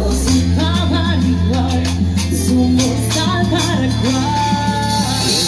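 Live Latin pop band music with a woman singing into a microphone, over sustained bass notes and steady bright percussion. The bass note changes twice.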